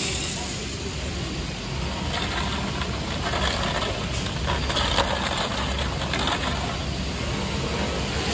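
Many small beads sliding and pattering through wooden sound boxes as the boxes are tilted and turned by hand: a dense rattle of tiny clicks, thicker from about two seconds in.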